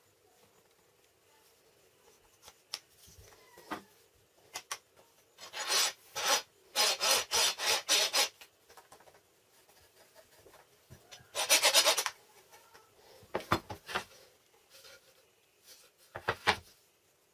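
Wood being abraded by hand in quick back-and-forth strokes: one run of a few seconds, then a shorter run. Short knocks and clicks of handling the workpiece come in between.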